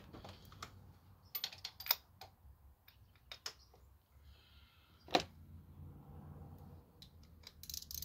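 Scattered light clicks and clacks of metal tools and parts being handled on a car engine, in small clusters, with one louder knock about five seconds in.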